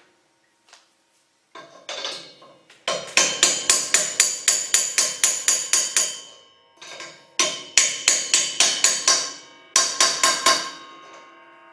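Hammer blows driving a pulley onto a slab saw's steel arbor: a few light taps, then three runs of quick strikes, about four or five a second, each leaving the metal ringing, as the pulley is seated fully onto the shaft.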